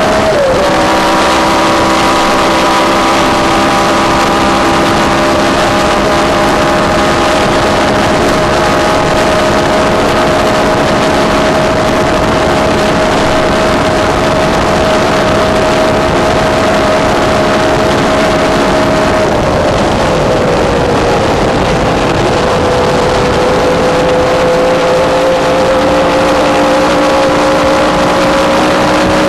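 Cooper-Maserati V12 Formula One engine running flat out in top gear, recorded on board; the engine note is almost constant, with revs rising only slowly. About two-thirds of the way through, the driver backs off a little and the pitch drops, then climbs slowly back.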